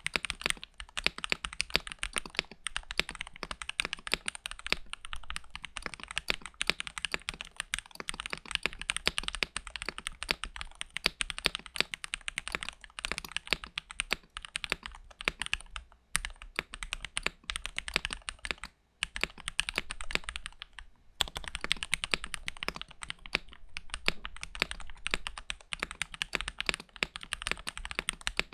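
Fast typing on a modded Epomaker Royalaxe Y68 mechanical keyboard with lubed Gateron Milky Yellow Pro switches, tuned stabilizers and silicone dampening, a dense run of keystrokes with a few short pauses. It sounds really clean and very deep.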